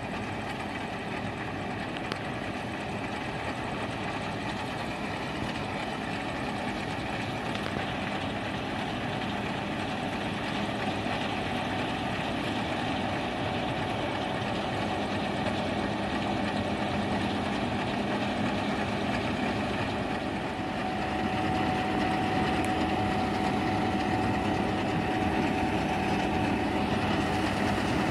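New Holland CS6050 combine harvester working in wheat: engine and threshing machinery running steadily under load, growing louder as it approaches, with a steady higher tone joining about three-quarters of the way through.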